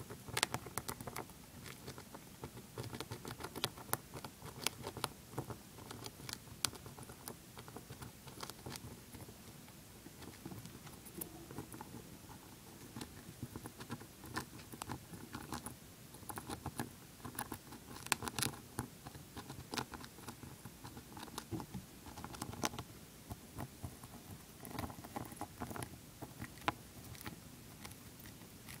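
Dwarf hamster gnawing and chewing a shelled peanut: runs of quick, irregular tiny crunches and clicks as its teeth work the nut.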